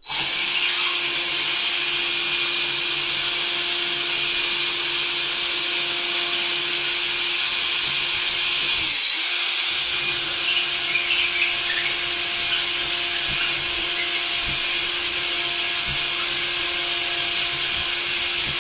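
DeWalt cordless drill running steadily as a larger bit bores out pilot holes in drywall to take butterfly wing-nut anchors. It runs for about nine seconds, stops briefly, then runs again for the second hole.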